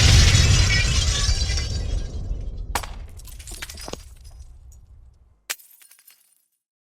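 Explosive demolition blast with a deep rumble and a crackling, shattering rain of debris and glass that fades over about five seconds, broken by a few sharp cracks. Near the end comes a separate short, sharp hit with a brief tinkle of debris.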